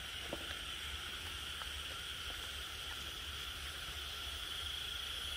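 Night insects, crickets among them, chirring in one steady high drone, over a low hum and a few faint clicks.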